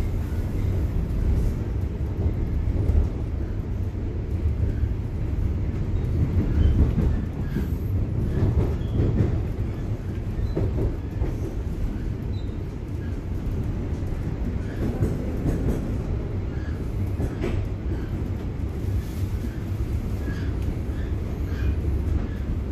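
A Bombardier Toronto Rocket subway train running, heard from inside the car: a steady low rumble of wheels on rail, with a few faint knocks from the track.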